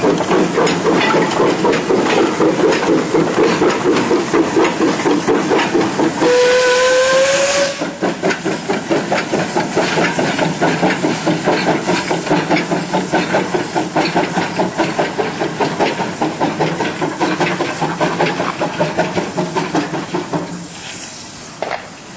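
Industrial steam locomotive working a train of coal wagons, its exhaust beating fast and evenly with a hiss of steam. About six seconds in it gives one whistle of about a second and a half that rises slightly in pitch. The beats fade away near the end.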